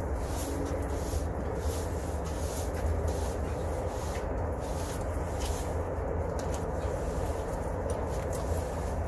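Broom bristles scraping over a concrete slab, sweeping up concrete dust and chips in short repeated strokes, about two a second, over a steady low rumble.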